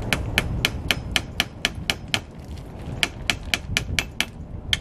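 Rapid, even tapping of a hatchet's back used as a hammer to drive nails, about six light blows a second, with a short pause a little after two seconds in before the tapping resumes.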